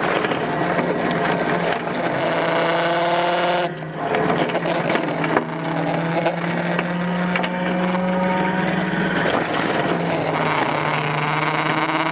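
Heavy machine engine running steadily with a whining, pitched mechanical tone over it. The whine cuts off sharply a little under four seconds in and comes back a few seconds later.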